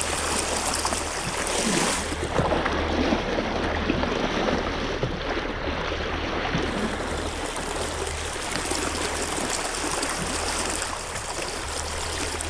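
A stream running, a steady rush of flowing water.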